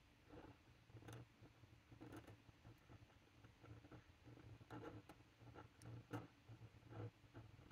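Faint scratching of a steel pen nib on textured card: a run of short, irregular strokes as a word is written in cursive.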